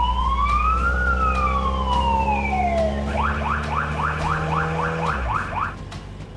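Police car siren in a slow wail, rising for about a second and falling for two, then switching to a fast yelp of about four rising whoops a second that stops near the end. A low steady hum lies under it and cuts out about five seconds in.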